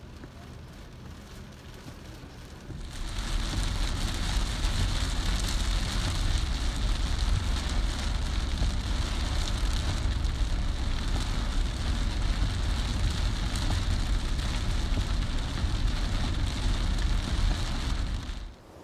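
Steady rushing water noise that starts loudly about three seconds in and cuts off suddenly near the end.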